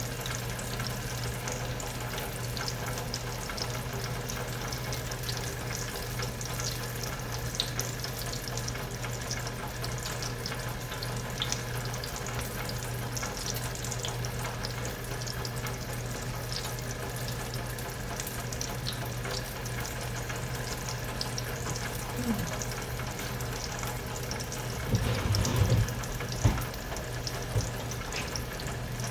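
Steady sizzling and crackling from a pan on the stove, over a constant low hum. A few knocks and clatters near the end.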